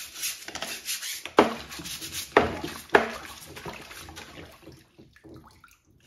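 Soft brush scrubbing a dishwasher's cylindrical mesh filter over a wet sink, with water splashing and a few sharp knocks about one and a half, two and a half and three seconds in. The scrubbing dies away in the last two seconds.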